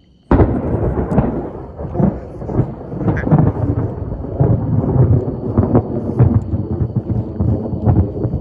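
Thunder breaking suddenly, a little under half a second in, then rolling and rumbling loudly with repeated crackling peaks.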